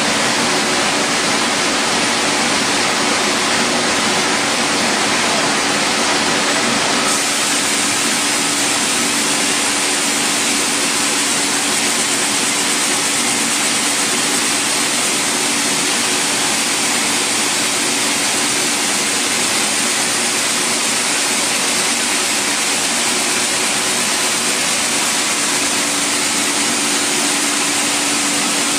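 Steady rushing hiss of a robot-held air spray gun atomising paint inside a spray booth, over the booth's extraction air and a low steady hum. The hiss turns brighter about seven seconds in.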